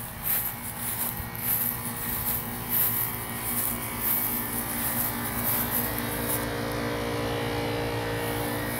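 A steady low mechanical hum holding a few fixed pitches. Over it, footsteps swish through lawn grass about twice a second and stop about six and a half seconds in.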